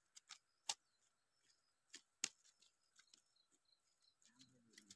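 Near silence broken by a few sharp, short clicks, the two loudest about a second and a half apart, with faint high chirps in the background.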